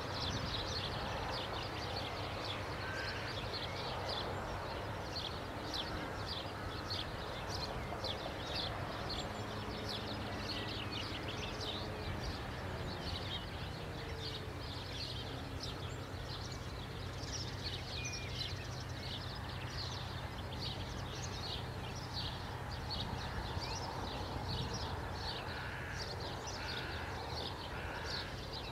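Outdoor background noise with small birds chirping busily throughout, over a low steady hum; near the end a bird gives a short run of four evenly spaced calls.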